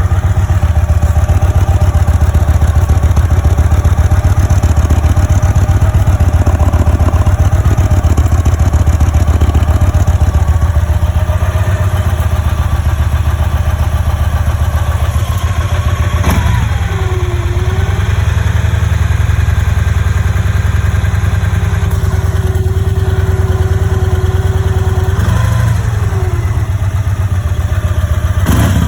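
Raider motorcycle engine idling steadily, carrying the unwanted noise the owner is recording as a problem. About halfway through, a thin steady tone comes in over the running engine and glides away again near the end.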